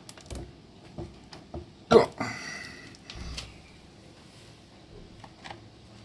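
Plastic door-latch mechanism of an LG dishwasher worked by hand into its locked position, clicking several times, with one loud click about two seconds in followed by a brief high-pitched sound. The clicks come as the latch is set so the door microswitch signals the door closed.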